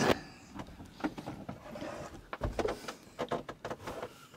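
Handling noise from someone moving forward through a small sailboat cabin: a sharp knock at the start, then clusters of light clicks, knocks and rustles as they brush past hanging clothes.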